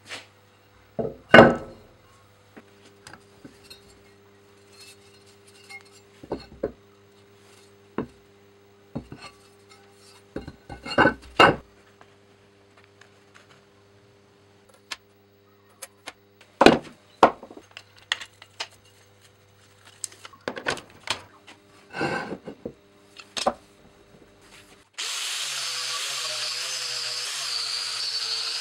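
A rusty Keesteel broad axe head knocked and set down on a wooden workbench: a scattering of separate clunks, the loudest about a second in. About 25 seconds in, an angle grinder fitted with a wire wheel starts and runs steadily against the steel axe head, cleaning off the rust.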